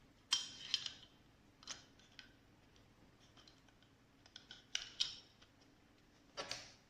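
Light clicks and short scrapes of small plastic and metal parts being handled, about six in all with a cluster near the middle: an M.2 NVMe SSD being fitted into a plastic SSD enclosure.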